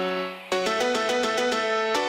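Background music: sustained keyboard chords, with a new chord struck about half a second in and a quick run of notes over it.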